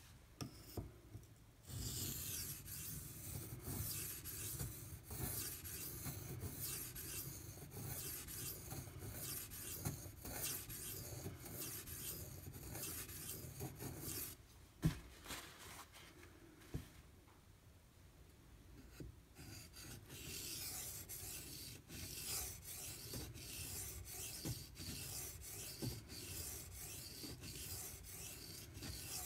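Steel knife blade being drawn in repeated strokes across a wet 1000-grit Imanishi water stone, a fairly quiet scratchy scraping. The strokes stop for a few seconds around the middle, with a couple of light knocks, then resume.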